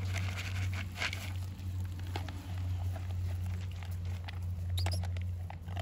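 Puppies eating from plastic bowls: scattered small clicks, scrapes and rustles of muzzles in the bowls and paws shifting on dry leaf litter, over a steady low hum.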